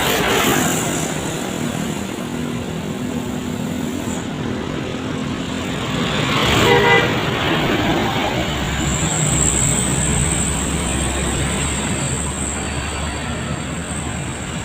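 Road traffic passing close by, one vehicle sweeping past right at the start, and a short vehicle-horn toot about seven seconds in. A faint high steady whine runs through the second half.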